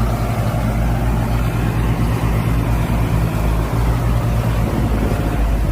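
Farmtrac 60 tractor's diesel engine running steadily and loudly, a low even drone, as it works to pull a trolley whose wheel has sunk.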